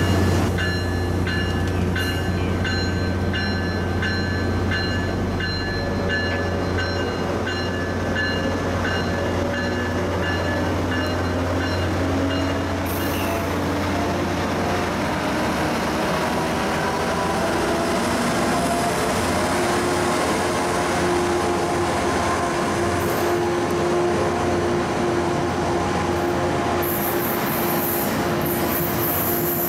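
A Tri-Rail diesel commuter train passing close by. The locomotive's engine makes a steady low drone, and for roughly the first dozen seconds a bell rings in quick, even strokes. The bilevel coaches then roll past with slowly rising whines, and the wheel noise grows louder near the end.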